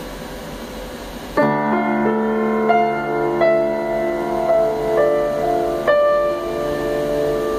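Freshly tuned acoustic piano: after a moment of faint hiss, a chord is struck about a second and a half in and left ringing. A few more notes and chords follow slowly, about one a second, over the sustained sound.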